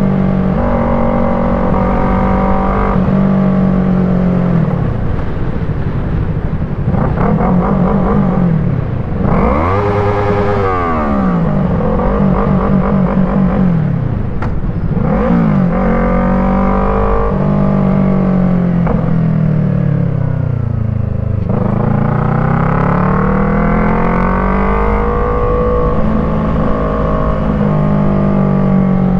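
Yamaha MT-03's parallel-twin engine through an Arashi aftermarket exhaust with the dB killer fitted, ridden: the engine note climbs and drops repeatedly as the bike accelerates through the gears and eases off. About ten seconds in it revs sharply up and straight back down.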